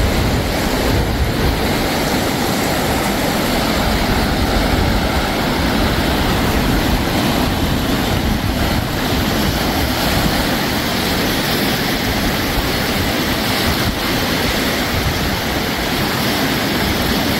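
Wind rushing steadily over the microphone with a fluctuating low rumble, over small waves washing up onto a sandy beach.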